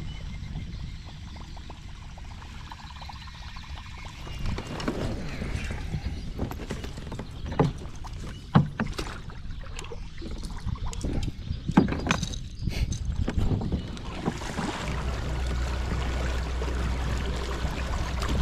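Kayak being paddled: water swishing and splashing with the paddle strokes, with a few sharp knocks against the hull.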